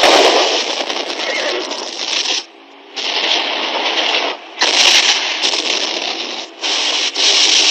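Battle din from an old film soundtrack: a dense, continuous rattle of rapid gunfire. It cuts out briefly about two and a half seconds in, and for moments a few more times.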